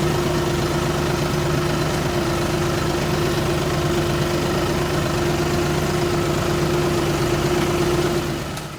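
Vehicle engine idling steadily with a constant hum, fading out near the end.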